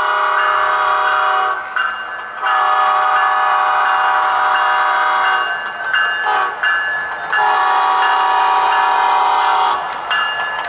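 Diesel locomotive horn sounding the grade-crossing signal: a long blast, a second long blast, a short one about six seconds in, then a final long blast that stops near the end.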